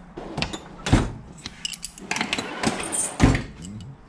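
Metal wrenches clinking and rattling as they are picked out of a tool chest drawer tray, with two heavier thumps, about a second in and just past three seconds.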